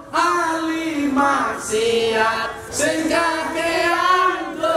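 Several voices singing a devotional song together in long, held notes with a wavering pitch.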